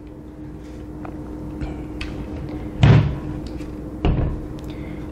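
Handling noise from a Saiga 12 AK-pattern shotgun being lifted off a table: a sharp thud about three seconds in and a smaller clunk about a second later, with a few faint clicks. A faint steady hum runs underneath.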